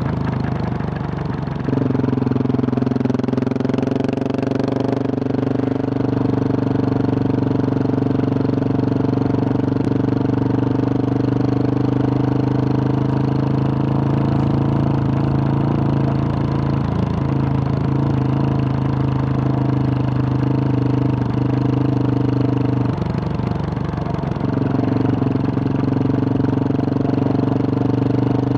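2021 Husqvarna 701 Supermoto's single-cylinder engine running steadily under way through a Wings exhaust with a large dB killer. The note dips briefly twice, near the start and about five seconds before the end, then picks back up.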